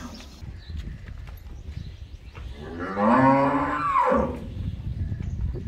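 A Sahiwal cow mooing once, a single call of about a second and a half, about three seconds in, that rises in pitch and then falls away, over a steady low background rumble.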